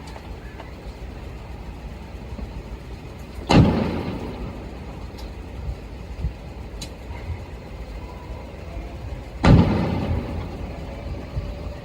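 Two distant fireworks booming, about six seconds apart, each followed by a rumbling echo that dies away over a second or so, over a steady low rumble.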